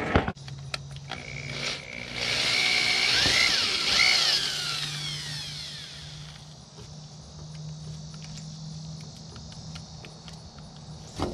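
Electric drill with a hole saw cutting through a rubber gland into a block of scrap wood: the motor starts about a second in and runs loudest for a few seconds with its pitch sweeping up and down, then runs on more quietly. A sharp knock near the end.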